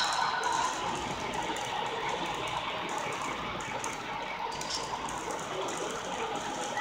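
Model freight train running on layout track, its cars' wheels rolling steadily over the rails as the train passes close by.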